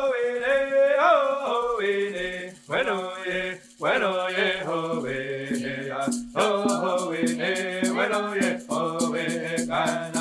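Music: a voice singing a chant-like melody, joined about six seconds in by a rattle shaken in a quick, steady beat.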